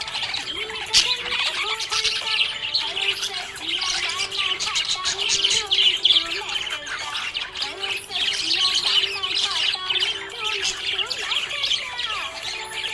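Budgerigar chirping and warbling in a fast, continuous chatter of short chirps.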